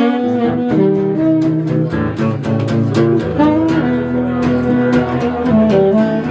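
Instrumental music led by guitar, plucked notes over a bass line.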